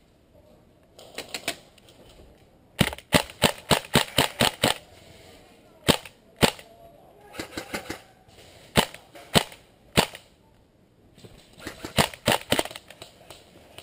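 Airsoft guns firing: sharp snapping shots, a quick string of about eight shots about three seconds in, then scattered single shots and short groups.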